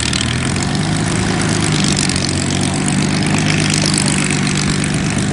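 Supermarine Spitfire's V12 piston engine running steadily at low power on the ground, propeller turning, with a deep, even drone.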